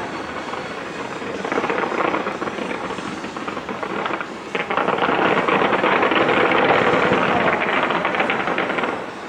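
A fireworks display going off in a dense, continuous barrage of bursts and crackles that swells louder about five seconds in.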